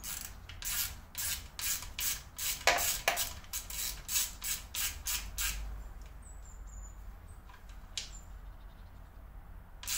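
Hand screwdriver turning a steel screw into an aluminium thread: a short scraping rasp with each turn, about three a second for the first five seconds or so, then only a few faint clicks.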